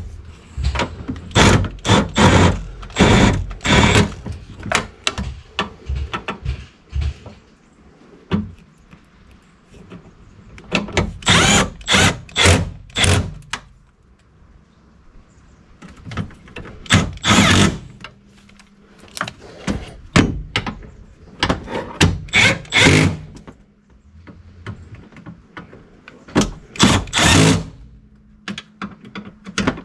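Tool work on a pickup's engine bay while a cold air intake is fitted: several bursts of rapid clicking and knocking, separated by quieter gaps.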